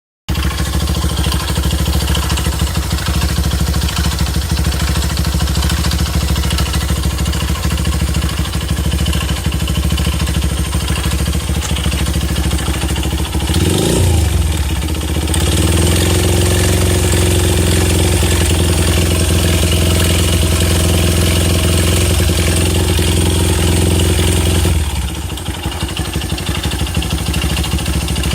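Honda Ape's single-cylinder four-stroke engine idling, revved briefly about halfway through, then held at a higher speed for about ten seconds before it drops back to idle. The whole engine makes an abnormal noise, which the owner fears may mean a fairly serious fault.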